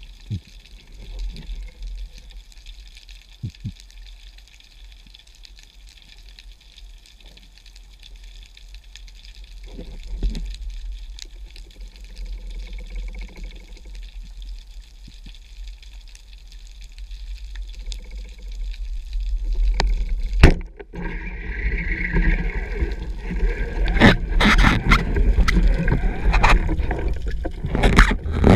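Muffled underwater ambience with scattered faint clicks, then about twenty seconds in a single sharp crack as the speargun fires. After it comes loud rushing water and repeated knocks and clicks as the speared fish is struggled with and handled.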